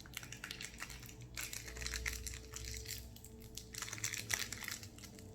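Crinkling and rustling of a candy wrapper being opened by hand: a run of small, irregular crackles.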